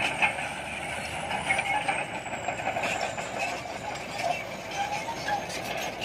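Shantui SD22 crawler bulldozer's diesel engine running under load as it pushes rock and earth, with a steady mechanical din and scattered knocks and crunches.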